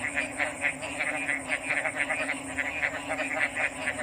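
A chorus of frogs calling: a rapid string of short croaks, several a second, overlapping one another, with a steady high-pitched whine behind them.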